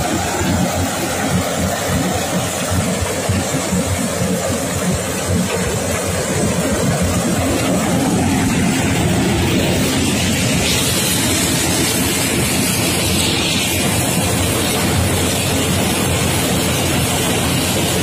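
Yanmar combine harvester running while harvesting corn: a steady engine and machinery noise, a little louder from about eight seconds in.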